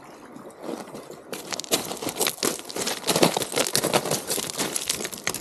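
Dense crunching and clattering of rounded beach stones, footsteps and scuffing on a cobble shore. It starts quietly and thickens into a steady crunch about a second and a half in.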